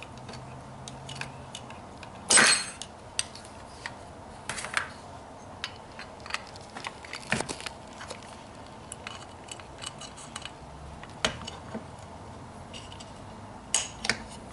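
Irregular metallic clicks and clinks of a steel punch and small parts being worked on a rifle's lower receiver while the bolt catch is pushed into place, with one sharper clack about two seconds in.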